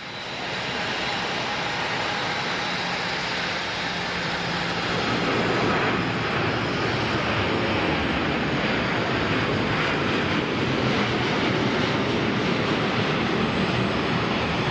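Jet airliner's engines at takeoff thrust as a Qatar Airways jet departs: a steady rushing noise that rises within the first second and grows louder and fuller about five seconds in.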